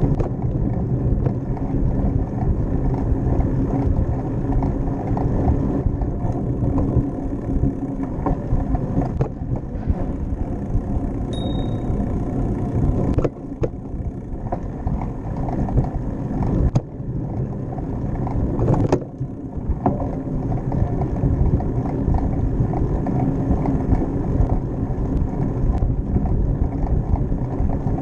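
Steady low rumble of wind and tyre noise from a bicycle riding along a paved path, with a few sharp knocks midway and a brief high chirp shortly before them.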